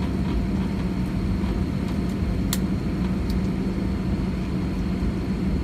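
Cabin noise of an Airbus A320 taxiing: a steady low rumble with a steady low hum, and a single sharp click about two and a half seconds in.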